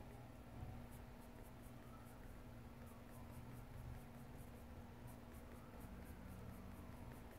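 Coloured pencil scratching on sketchbook paper in faint, quick, short strokes, several a second, coming in runs.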